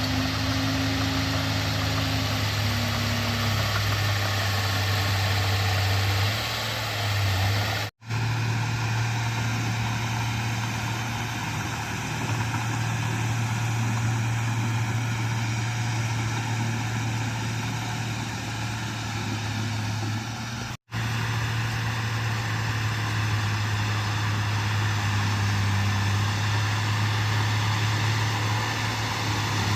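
Bulldozer's diesel engine running steadily with a deep low note. The sound cuts out for an instant twice, about 8 and 21 seconds in.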